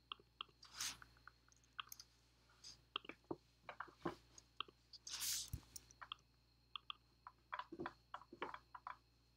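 Soft, irregular clicking of computer keyboard keys and a mouse, with two short soft hisses, about a second in and about five seconds in.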